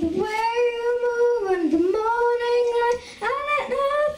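A young girl singing into a microphone, holding long sustained notes with a brief break for breath about three seconds in.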